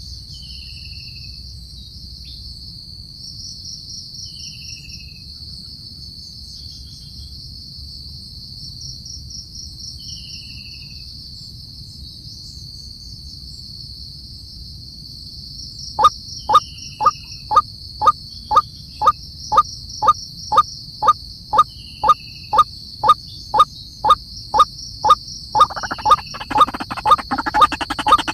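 Steady high-pitched insect drone, like a cricket chorus, with a short falling whistle every few seconds. About halfway through, a loud series of sharp, evenly spaced notes starts at about two a second, and a denser, busier sound joins near the end.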